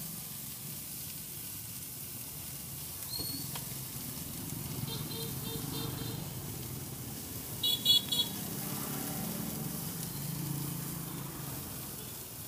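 Street traffic with a steady low rumble. A vehicle horn beeps in a quick run of short pulses about five seconds in, then gives three loud short toots around eight seconds.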